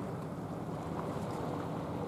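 Steady low rumble of wind on the microphone and surf along the rocky shore, with a faint steady hum underneath.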